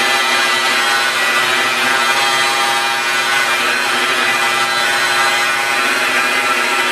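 Rotary polisher with a wool buffing pad running steadily at speed against black car paint, a constant motor whine over the hiss of the pad. This is the compound-cutting stage, taking out sanding scratches and swirl marks.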